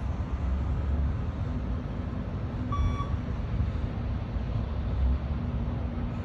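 A single short electronic beep from a beep-test (shuttle-run) audio track, about three seconds in, signalling the runner to reach the line at level 9. A steady low rumble runs under it.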